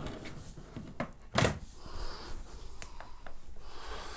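A dull thunk about a second and a half in, with a few light clicks after it: cables and gear being handled and stowed in a low TV cabinet.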